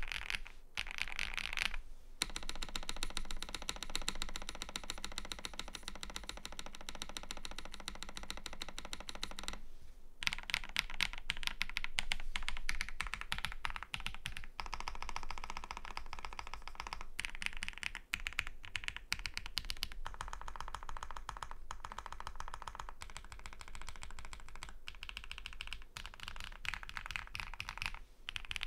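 Continuous typing on a KBDFans Tiger80 Lite mechanical keyboard with lubed HMX Hyacynth V2 switches, PBT keycaps, a polycarbonate plate and tape-mod plus PE foam dampening. It is a dense run of keystroke clacks, with short pauses about two seconds in and about ten seconds in.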